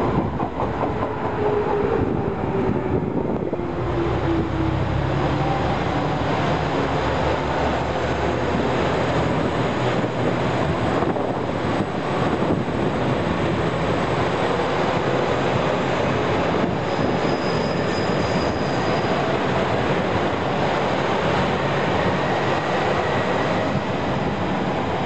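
JR Shikoku 2000 series diesel express train running past at close range: a steady rumble of engines and wheels on the rails. A falling engine tone is heard in the first few seconds, and faint high squeals come later.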